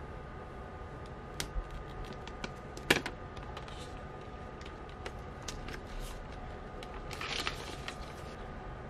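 Clear plastic film being peeled and crumpled off a phone box, with scattered small crinkles and clicks of hands on the cardboard, one sharp tap about three seconds in and a short crackle of plastic past seven seconds.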